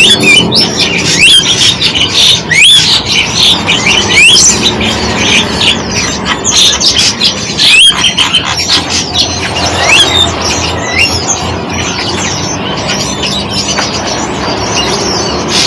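Several birds chirping and calling together, with many quick rising whistled notes; the calling thins out after about ten seconds.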